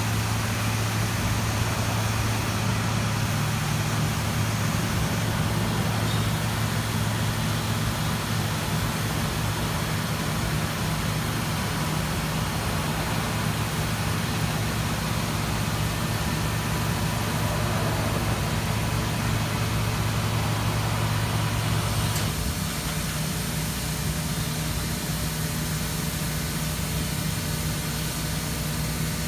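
Platino 1530 2200-watt CO2 CNC laser cutting system running under power, a steady machinery hum with a hiss over it. The deepest part of the hum cuts off about three quarters of the way through, and the rest of the hum carries on.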